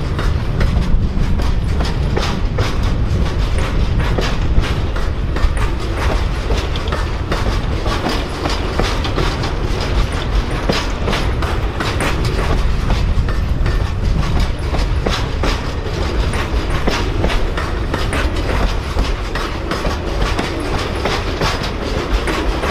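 Amtrak Auto Train autorack cars rolling past close by: a steady rumble with a continuous run of wheel clicks as the wheels cross the rail joints.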